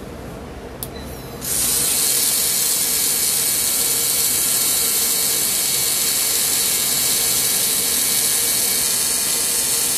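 3Doodler 3D pen's motor and drive gears running steadily as it feeds plastic through the heated nozzle, a loud mechanical whirr that starts about a second and a half in, after a faint click.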